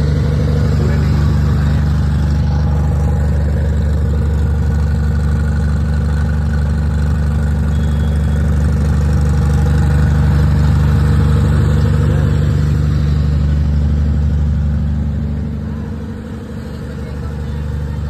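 Diesel engine of a DJ sound truck idling steadily, a deep even hum that dips briefly near the end.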